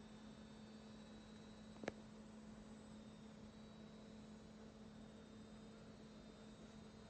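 Near silence: a faint steady electrical hum, with one short click about two seconds in.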